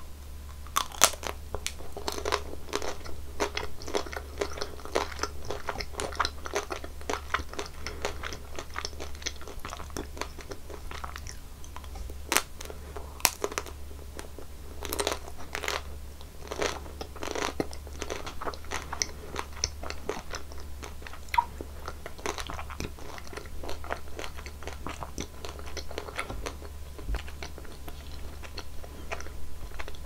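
Close-miked eating: teeth biting through a chocolate-coated treat's hard shell with sharp cracks, then chewing with repeated crisp crackles and crunches.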